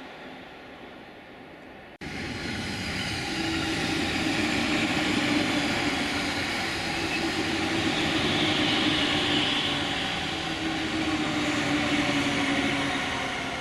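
Tokaido Line train passing close by: steady running and rail noise with a low hum that sinks slightly in pitch. A quieter, fading sound cuts off abruptly about two seconds in before the passing train.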